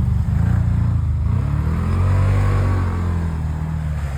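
ATV engine running under throttle, its pitch rising about a second in and easing back down over the next couple of seconds.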